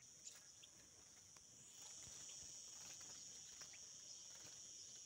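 Faint steady high-pitched buzz of insects in summer heat, swelling a little about two seconds in, with a few faint ticks.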